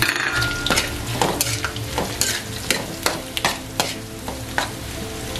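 Mushroom stems and garlic sizzling in hot oil in a metal wok while a metal spatula stirs them, scraping and knocking against the wok several times a second.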